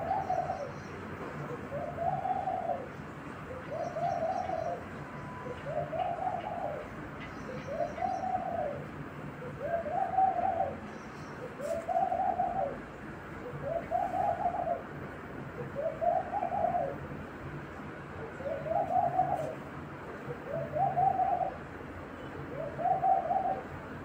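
A dove cooing: one short arched coo repeated steadily about every two seconds, twelve times over, with faint chirps from a small bird in the first half.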